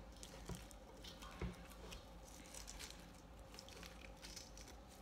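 Faint squishing and small clicks of sticky sand slime being scraped off a bowl and handled.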